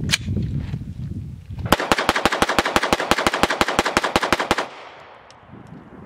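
9mm CZ Scorpion Evo Micro fired in one rapid string of about two dozen shots at roughly eight a second. The string starts a little under two seconds in and stops abruptly about a second and a half before the end. A single sharp click comes right at the start.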